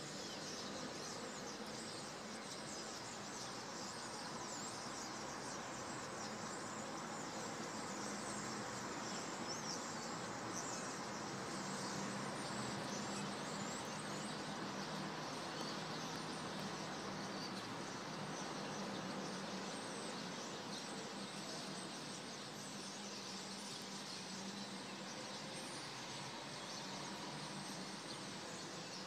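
Steady outdoor dusk ambience: an even background hiss full of many faint, rapid high chirps, with a low steady hum underneath.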